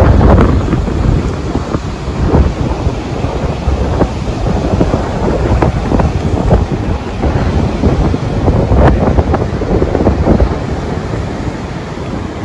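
Strong wind buffeting the microphone: a loud, low rushing rumble that swells and eases in gusts, loudest at the start.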